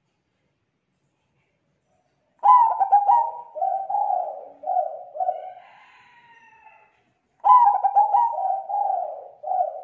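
Zebra dove (perkutut) cooing: two calls, each opening with a quick stutter of notes and running into a string of lower rolling coos. The first starts about two and a half seconds in, the second near the end.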